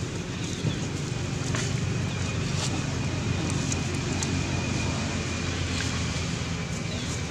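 A steady low mechanical drone, like an engine running, with a few light clicks and rustles of dry leaves underfoot.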